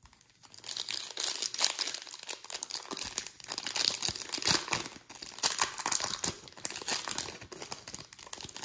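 Empty foil trading-card pack wrapper being crumpled and folded in the hands: a dense, crackling crinkle that goes on with little pause.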